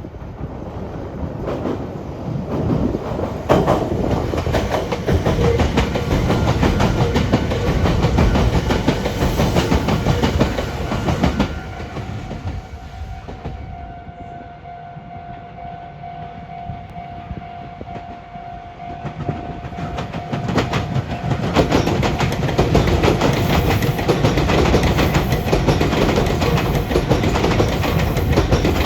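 Meitetsu electric trains running over the Biwajima junction points, wheels clattering over the rail joints and frogs. A quieter stretch in the middle carries a steady hum, then a second train clatters across the points.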